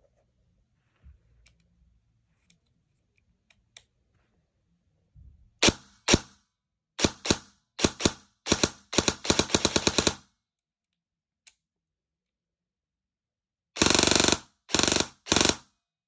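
TR16 MBR 308 airsoft electric gun (AEG), set up to fire about 50 rounds per second, test-firing: a few single shots and a quick run of shots, then three short full-auto bursts near the end. Faint clicks of the gun being handled come first.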